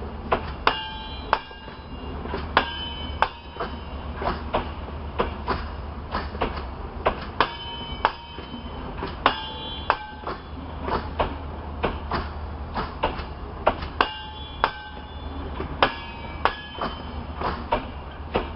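Passenger coaches rolling past, their wheels knocking over rail joints and points, mostly in quick pairs, with a brief metallic ringing after many of the knocks over a steady low rumble.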